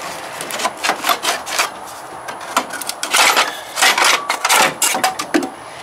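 Socket ratchet clicking in short bursts, stroke after stroke, as a bolt is worked loose in an engine bay.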